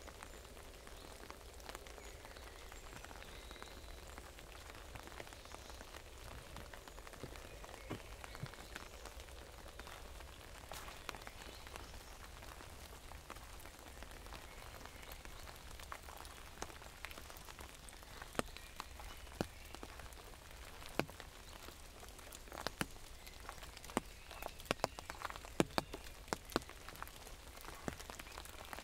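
Raindrops tapping on an umbrella over a steady hiss of rain. The taps are sparse at first and become more frequent and louder in the second half.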